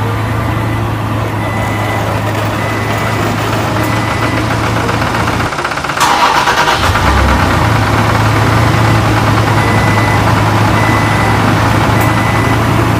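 Tractor engine idling steadily with a constant low hum. It breaks off briefly about halfway and comes back a little louder.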